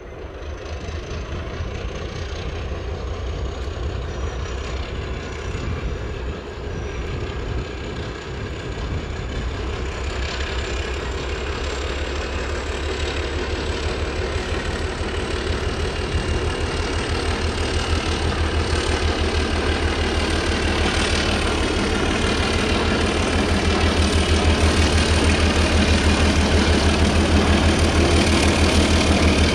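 Alco-design diesel locomotive approaching under power: a deep, evenly pulsing engine throb with a thin high whine that slowly rises in pitch, the whole sound growing steadily louder as it comes closer.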